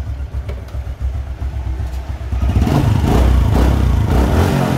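2006 Honda Future Neo's 125 cc single-cylinder four-stroke engine running at idle, getting louder and fuller about halfway through. The seller judges it a solid, tight-sounding engine.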